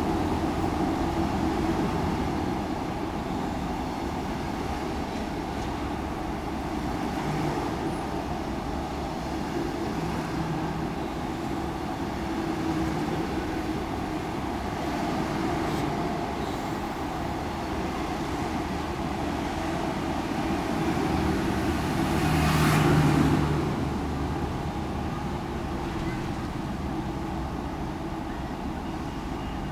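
Passenger coaches of a diesel-hauled train rolling past with a steady rumble and rush of wheels on rail. There is one louder, brighter rush about two-thirds of the way through, and the sound dies down a little near the end as the last coach clears.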